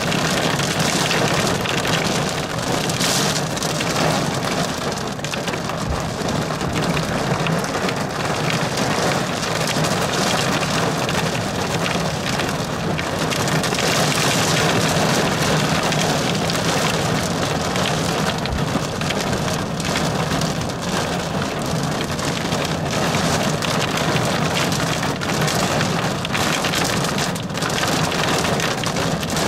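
Steady rain hitting a car's windshield and roof, heard from inside the car, swelling slightly about midway through.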